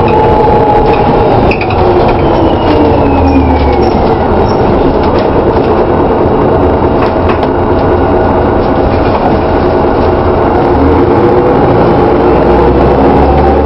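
Interior running sound of a DAF DB250LF double-decker bus with a 3-speed Voith gearbox: engine and driveline whine over road rumble, the whine falling in pitch over the first few seconds as the bus slows, holding steady, then rising again near the end as it picks up speed.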